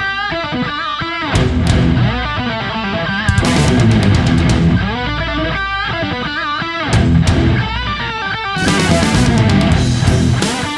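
Intro music: heavy rock with electric guitar, drums and bass.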